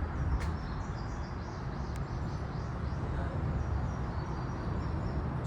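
Steady low outdoor rumble, with faint high bird chirps now and then.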